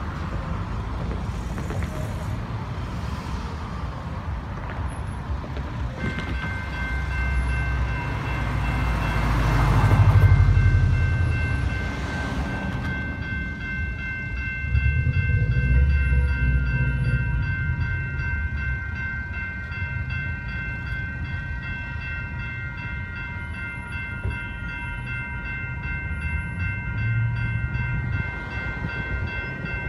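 Electronic railway crossing bells, among them a General Signals Type-2 electronic bell, start ringing about six seconds in, with a second set of bells joining a few seconds later, and they keep ringing as the crossing activates. A car passes about ten seconds in, the loudest moment.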